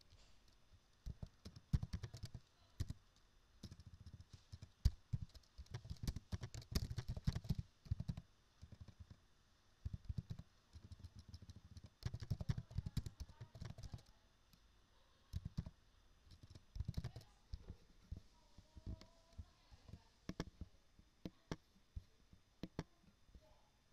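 Typing on a computer keyboard: irregular runs of quick keystroke clicks broken by short pauses.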